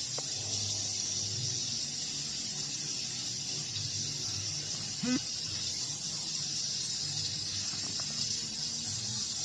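Steady hiss of falling rain, with one brief pitched sound about five seconds in.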